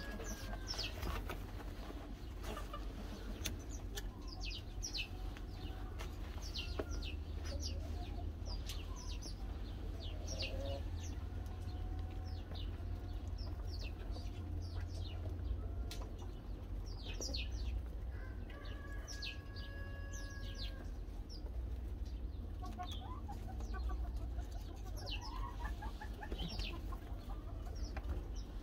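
Chickens clucking, with many short, high, falling chirps scattered throughout, over a steady low rumble.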